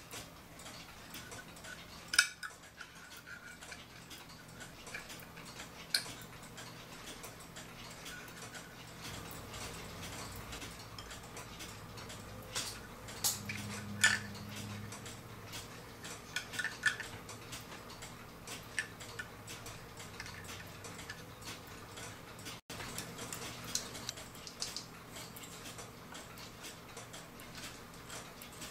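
Small clicks and clinks of brass clock gears and parts being handled and fitted into a wooden-plated clock movement, a few sharp ones standing out about two seconds in and near the middle. A clock ticks faintly underneath.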